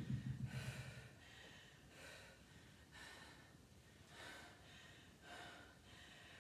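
A woman breathing hard between sets of a dumbbell workout: short, faint gasping breaths about once a second. In the first second, the tail of a thud fades out.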